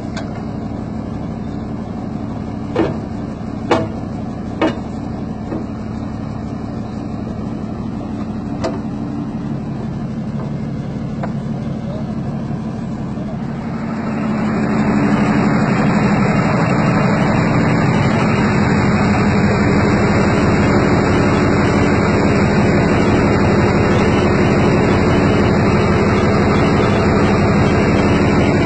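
Heavy military recovery truck's engine idling steadily, with a few sharp knocks a few seconds in. About halfway through the engine speeds up and runs louder and steady, heard near the end from inside the cab.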